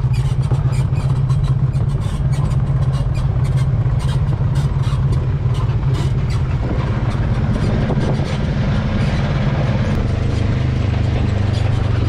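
Polaris RZR side-by-side's engine running steadily while driving on a rough trail, with many short knocks and rattles over the engine note. The engine note drops a little near the end.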